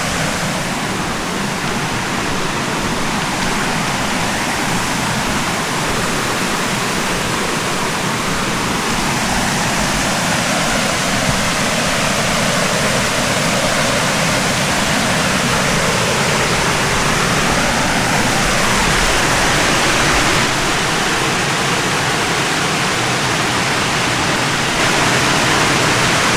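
Waterfall rushing steadily, a constant, even noise of falling water that grows slightly louder near the end.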